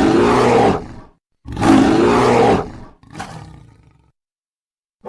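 Dinosaur roar sound effect: two loud roars about a second and a half apart, the second trailing off into a fainter, fading rumble.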